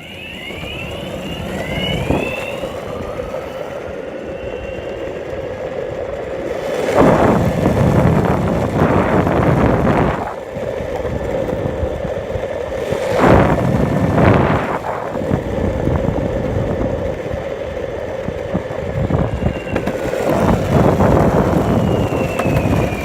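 Hibachi grill fire roaring steadily, with several louder flare-ups spread through.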